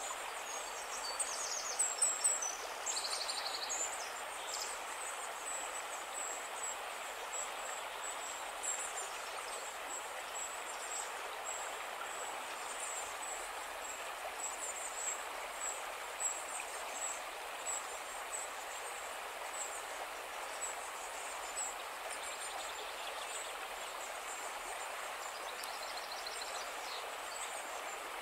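Steady rushing of a snowmelt-fed mountain river, with repeated short, high chirps over it.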